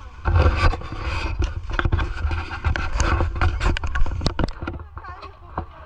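Scraping with a dense run of clicks and knocks over a steady low rumble, loud from just after the start until about four and a half seconds in.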